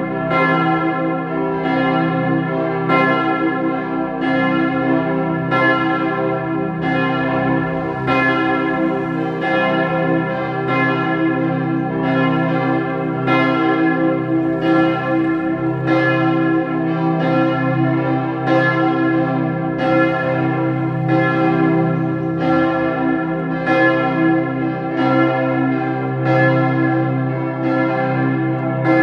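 The Martin-Luther-Kirche's church bells ringing in a steady peal, with strikes coming less than a second apart and overlapping over a lasting hum of bell tones.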